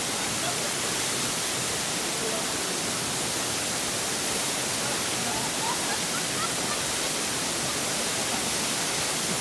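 Steady rush of a waterfall, an even hiss of falling water with no change in level.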